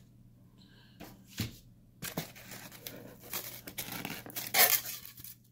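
Styrofoam lid of an insulated shipping cooler being worked loose and lifted, the foam scraping and rubbing against the foam box and cardboard in short irregular strokes, the loudest scrape about four and a half seconds in.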